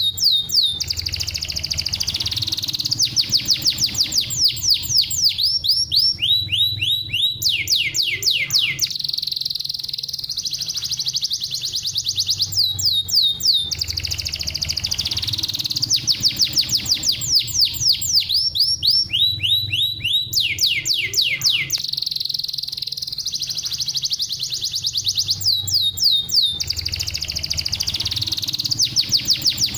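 Domestic canary singing a continuous trained song: rapid trills of falling whistled notes alternating with held buzzy rolls, over a low hum. The same song sequence comes round again about every thirteen seconds.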